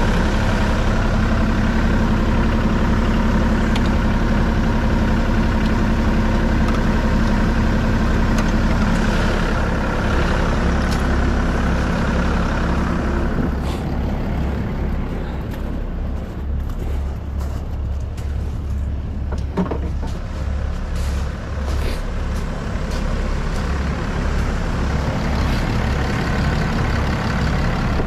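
Bobcat compact excavator's diesel engine running steadily, warming up just after a hard cold start. About halfway through the sound drops lower and a little quieter, with a few light clicks and knocks.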